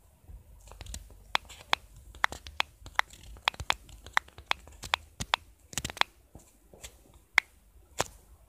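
Typing on a smartphone: irregular sharp taps, about two or three a second, stopping near the end.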